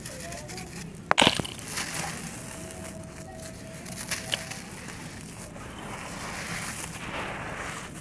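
Dry, soft sandy clay block being broken and crumbled by hand. A loud, sharp crunch comes about a second in and a smaller crunch around four seconds. Near the end there is a gritty rustle of loose dry soil being raked by hand.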